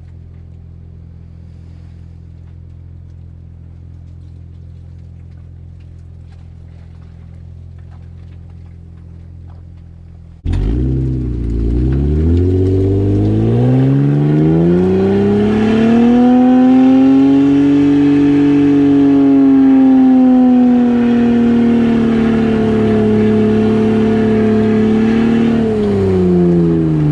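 Jeep engine idling low and steady; about ten seconds in, a much louder engine note starts abruptly, revs up and is held at high revs for over a dozen seconds with slight wavering, easing a little near the end: a vehicle working hard to pull through thick mud.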